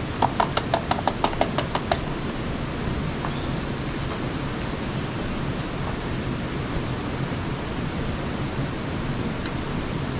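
Hand slapping the bottom of an upturned metal can, about a dozen quick taps over two seconds, each with a short tinny ring, knocking beans out into a pan. A steady hiss follows.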